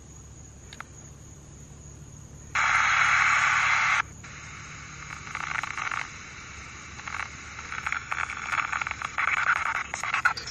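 Spirit box sweeping through radio frequencies: a burst of static switches on suddenly about two and a half seconds in and cuts off a second and a half later, then comes back as choppy, stuttering static that gets busier toward the end.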